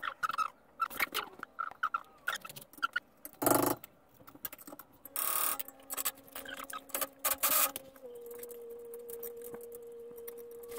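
Scattered clicks and knocks of hand tools working on a car's rear suspension, with a heavier thump about three and a half seconds in. A faint steady hum comes in about halfway through.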